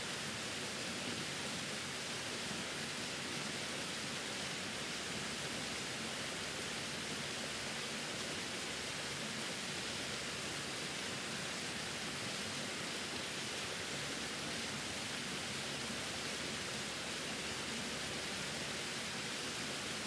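Small waterfall spilling down a rock face, a steady, even rush of falling water with no separate events.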